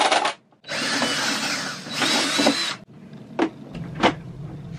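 Cordless drill running a 2.5-inch hole saw through the plastic lid of a Rainman watermaker membrane case. It cuts out briefly near the start, runs again for about two seconds with its pitch wavering, and stops just before three seconds in. Two sharp knocks follow.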